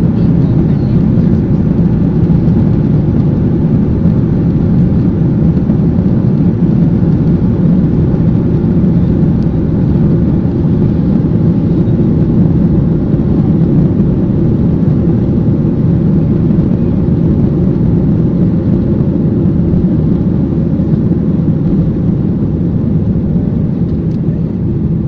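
Cabin noise inside a Boeing 737-800 on its takeoff roll: the CFM56-7B engines at takeoff thrust and the wheels on the runway make a loud, steady, deep noise. It eases slightly near the end as the aircraft lifts off.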